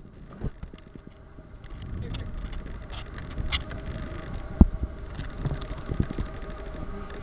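Small boat on the water: a low steady rumble under a faint steady hum, with scattered knocks and clicks, the loudest a little past halfway.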